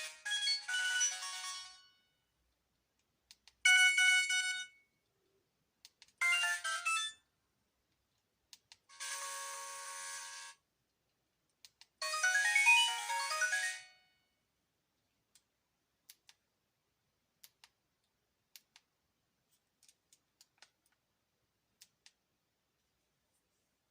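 Sony Ericsson K508i mobile phone playing its SMS message alert tones one after another: short electronic jingles of one to two seconds each, five in all (the first already under way), with gaps of a second or two between them. The last ten seconds hold only a few faint clicks.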